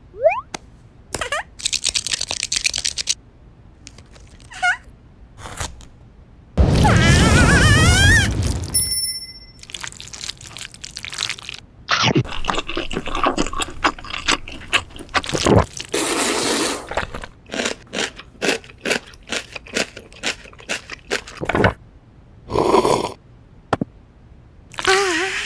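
A string of cartoon mukbang eating sound effects: crunching bites and chewing in quick strokes, mixed with short comic effects such as a rising pitch glide near the start and a loud warbling sound about seven seconds in.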